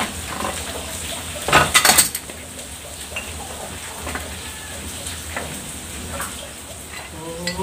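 Metal parts of a soybean grinder clinking and knocking as the shaft and its bearing housing are worked loose and pulled out by hand, with a burst of knocks about one and a half seconds in and lighter clinks after. It is the dismantling for a bearing swap, the old bearing's cage being broken.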